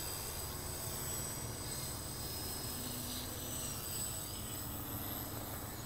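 Faint, distant whine of small electric RC aircraft motors, shifting slightly in pitch, over a thin steady high insect trill and a low steady rumble.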